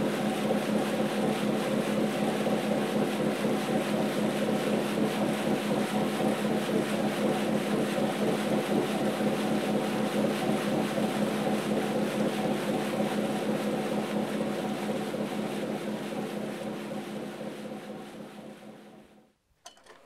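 A boat's engine droning steadily over the hiss of water spraying and rushing along the hull as the boat moves. The sound is loud and even, fades out over the last few seconds and stops just before the end.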